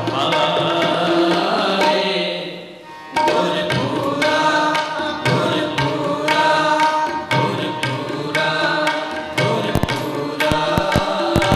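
Sikh Gurbani kirtan: a man singing devotional verse with tabla accompaniment and held instrumental tones, the music dropping away briefly about three seconds in before carrying on.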